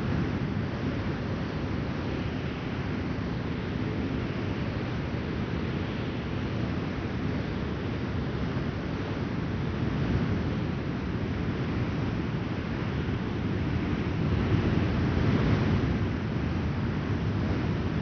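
Strong, gusty wind blowing steadily with a deep rumble, swelling in gusts about halfway through and again near the end.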